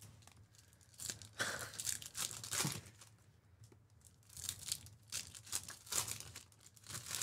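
Foil trading-card pack wrappers being torn open and crinkled by hand, in two bouts: about a second in and again from about four and a half seconds.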